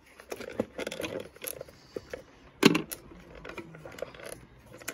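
Rubber air-filter intake trunking being worked loose and lifted out of a car's engine bay by hand: a run of rubbery creaks, plastic clicks and knocks, with one louder knock about two and a half seconds in.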